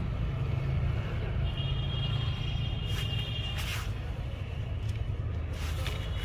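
Car engine idling with a steady low rumble, a few light clicks sounding over it.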